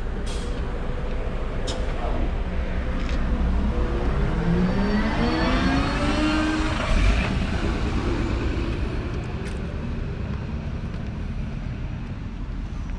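A city bus pulling away from the stop: its engine climbs steadily in pitch as it accelerates for a few seconds, over a low rumble, and the sound then fades as it moves off.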